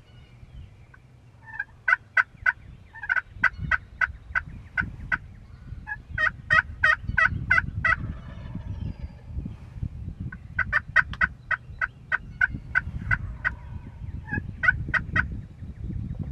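Wild turkeys yelping: five series of sharp, evenly spaced yelps, about four a second, with a low rumble of background noise underneath.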